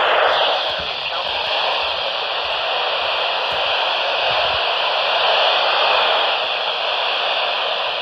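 Steady static hiss from a Midland weather radio tuned to the 162.550 MHz NOAA Weather Radio channel.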